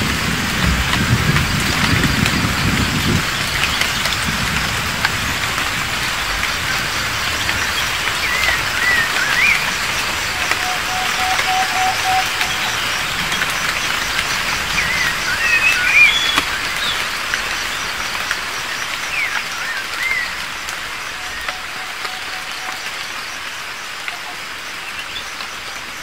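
Night rainforest ambience: a steady dense hiss with scattered chirping calls, and three times a short series of rapid, even tooting notes. A low rumble sounds in the first three seconds, and the ambience slowly fades out toward the end.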